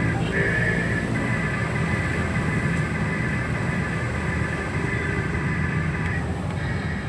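Radio-controlled toy excavator's small electric motors and gearboxes whining steadily over a constant low rumble, the whine shifting slightly in pitch a couple of times.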